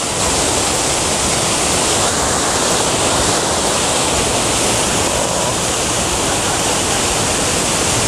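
Waterfall crashing down a rock face close by: a loud, steady rush of falling water.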